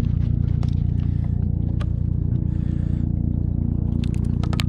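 Mercury OptiMax two-stroke outboard motor idling steadily, with a few sharp clicks near the end.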